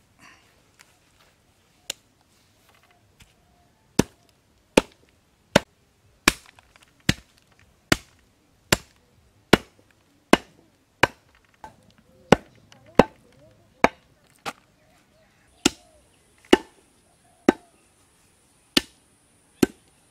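Heavy cleaver chopping mutton on a wooden stump block: one chop, a short pause, then a steady run of sharp chops at about five every four seconds.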